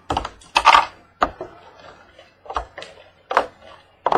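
A cardboard trading-card box being handled and opened: a string of about eight sharp knocks and scrapes, irregularly spaced.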